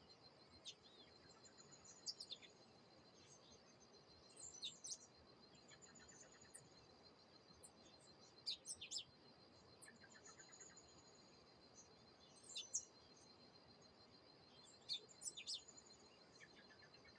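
Wild birds calling: short, sharp chirps that sweep down in pitch come in little clusters every few seconds, mixed with brief high trills, over a steady high-pitched insect trill.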